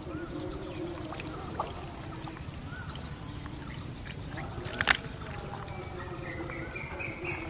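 Wet fish slapping into a plastic bucket with one sharp smack about five seconds in, over a steady background of trickling water and short chirps.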